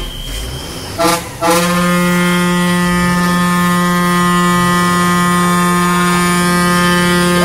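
A vehicle horn sounds a short blast about a second in, then is held down in one long, steady, unbroken blast.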